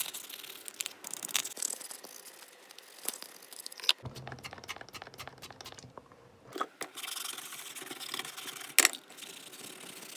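Scrubbing and scraping on the plastic speaker heads of a headset as they are cleaned with isopropyl alcohol, with scattered light clicks and one sharper click near the end.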